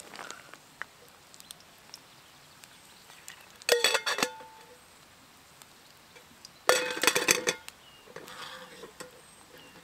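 Metal cooking gear clanking on a campfire grill: two short bursts of clatter with a ringing note, about four seconds in and again three seconds later.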